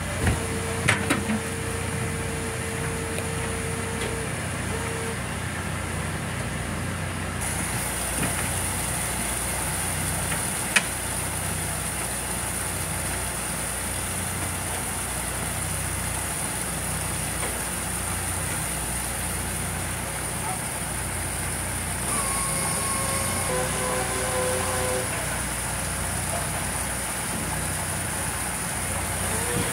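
Steady low drone of a fishing boat's deck machinery, with a few sharp knocks about a second in and a single knock around eleven seconds. A high thin whine comes in about seven seconds in.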